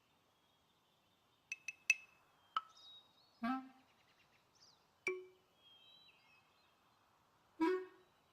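Sparse cartoon soundtrack: three quick high clicks, then a few short struck notes spaced about a second or more apart, each dying away quickly, over faint bird chirping.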